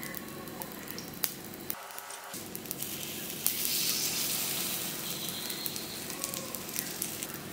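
Hot oil sizzling in an unniyappam pan as batter-coated jackfruit balls are lowered into it, with scattered small clicks. The sizzle gets louder about three and a half seconds in as fresh batter hits the oil.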